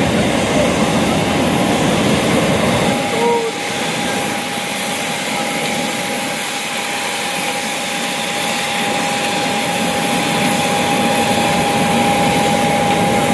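Jet aircraft noise from a parked Boeing 737: a loud, steady rushing hiss, with a steady high whine setting in a few seconds in.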